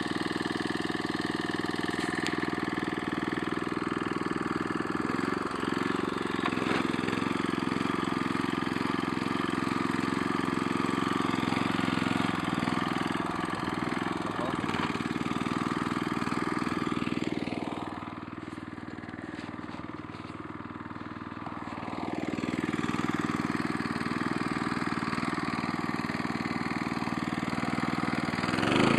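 Small petrol engine of a walk-behind two-wheel tractor running steadily as it drives across the field. Its sound drops and grows quieter for a few seconds about two-thirds of the way through, then picks up again.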